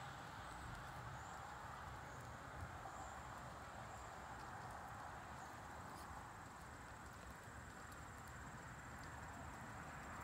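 Faint outdoor ambience: soft hoofbeats of a horse cantering on arena sand under a steady hiss, with a thin high insect trill.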